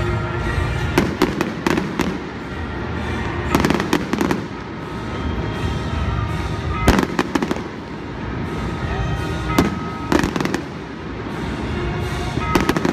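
Aerial fireworks going off in clusters of sharp bangs and crackles every few seconds, with music playing underneath.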